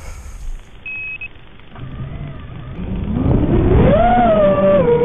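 Diatone GT200S racing quadcopter's brushless motors and propellers, heard through its FPV video transmitter's audio. A short beep comes about a second in and a low motor hum starts soon after. Around three seconds in the motors spin up to a steady whine for take-off, the pitch stepping up and down with the throttle.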